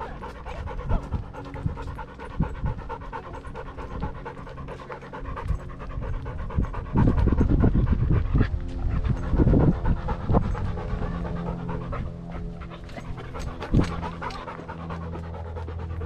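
Dog panting fast and close to a camera strapped to its body, with louder low rumbling and knocking about halfway through.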